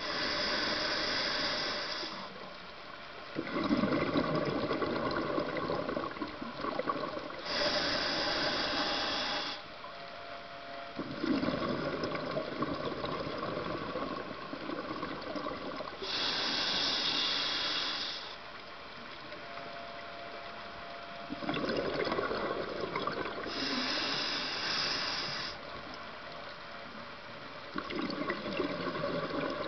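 A scuba diver breathing through a regulator underwater, about four slow breaths. Each inhale is a hiss of about two seconds, and each exhale is a longer rush of bubbles from the exhaust valve.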